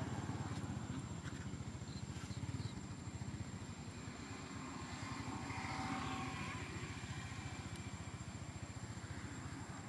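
A steady low engine rumble with a fine, even pulsing, like a motor running at a steady idle.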